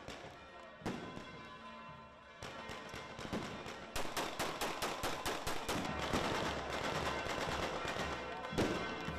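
Gunfire shot into the air: a couple of single cracks at first, then from about four seconds in a rapid run of cracks like automatic fire that keeps going almost to the end.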